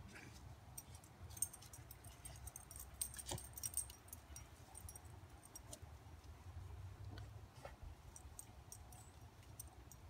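A dog's collar tags jingling faintly as the dog moves and sniffs, in scattered clusters of small metallic clicks and tinkles, busiest from about a second in to about four seconds in and again near the end, over a low steady rumble.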